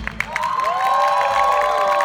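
Audience applauding and cheering at the end of a song: scattered clapping, with several voices starting long, drawn-out cheers about half a second in.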